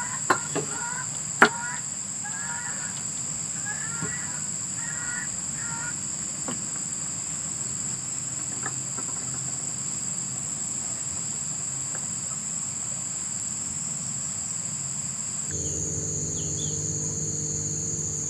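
Steady night chorus of crickets and other insects. For the first few seconds an animal repeats short chirping calls in quick series over it, and there are a few sharp clicks. Near the end the insect sound shifts abruptly and a low hum comes in.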